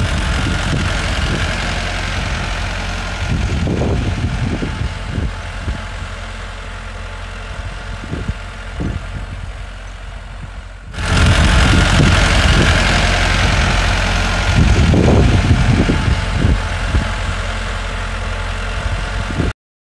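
Massey Ferguson 375 tractor's four-cylinder diesel engine running under load as it pulls a disc plough through the soil. The sound gets suddenly louder about eleven seconds in.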